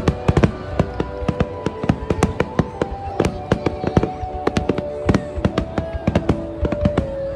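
Fireworks finale: rapid aerial shell bursts, dozens of sharp bangs and cracks in quick succession. Underneath runs music with long held notes that change pitch every second or so.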